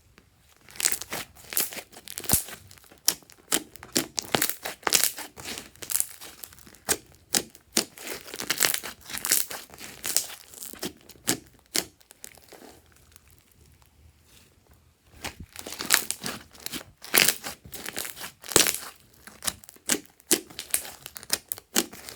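Fluffy slime being squished and pulled by hand: a dense run of sticky crackles and snaps, with a lull of a couple of seconds past the middle.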